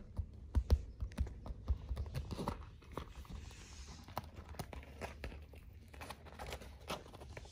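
A kitten's claws scratching and scrabbling at the fabric wall of a pop-up pet playpen: a run of small scratchy clicks and rustles of the cloth.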